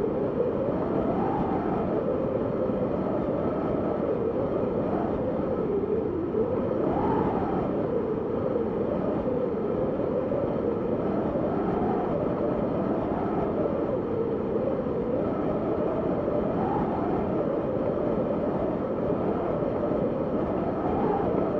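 Blizzard wind blowing hard: a steady rush of noise under a moaning tone that rises and falls in pitch every few seconds.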